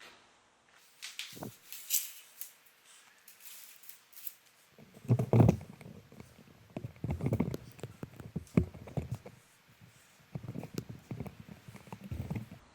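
Handling noises of hands working on a laptop: scattered clicks and taps, then heavier knocks and rubbing from about five seconds in.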